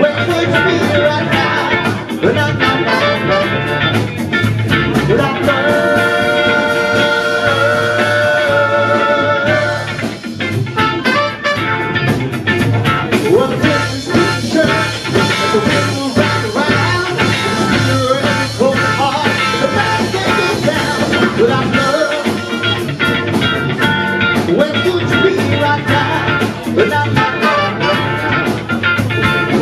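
Live band playing an upbeat rock song, with drum kit and electric guitars.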